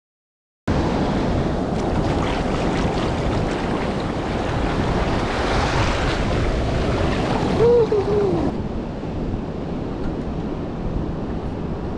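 Ocean surf on a beach, with wind buffeting the microphone, cutting in abruptly under a second in. It is loud and steady, and about eight seconds in a brief wavering call rises and falls twice over it.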